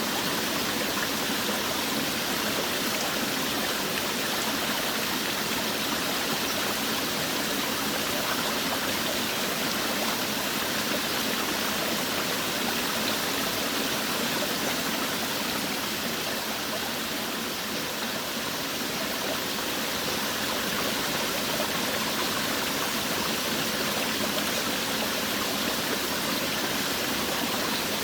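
Forest waterfall: water falling and rushing in a steady, even hiss.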